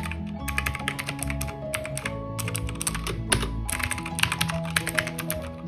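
Fast typing on a mechanical keyboard with clicky Outemu Blue switches: a rapid, continuous run of sharp key clicks, over background music.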